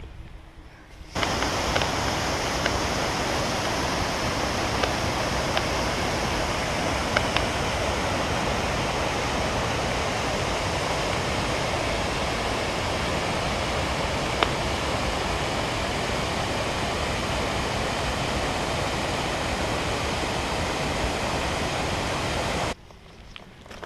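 Rushing water of a stream or waterfall, a steady, even rush that starts abruptly about a second in and cuts off near the end.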